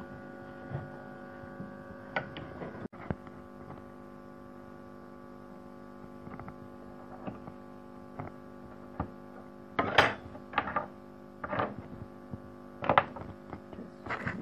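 Steady electrical hum, with light knocks and clicks of small wooden pieces and hand tools handled on a wooden workbench, the loudest about ten and thirteen seconds in.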